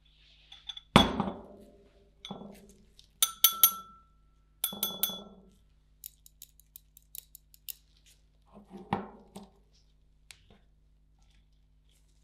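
Hard utensils clinking and knocking on hard dishware: a few sharp knocks, some ringing briefly, then a run of light ticks and two more knocks.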